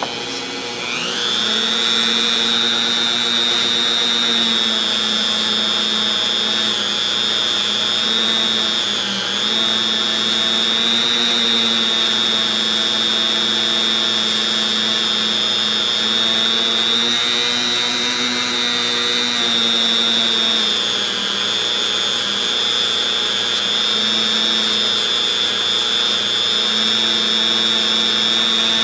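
Handheld rotary tool spinning a felt polishing wheel against a plastic screwdriver handle, a steady high-pitched whine. It spins up about a second in and dips briefly around nine seconds in.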